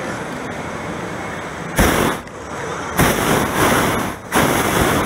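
Hot air balloon's propane burner firing overhead in loud blasts with sudden starts: a short one about two seconds in, then a longer one, a brief break, and another that runs on. Before the first blast there is a steady hiss.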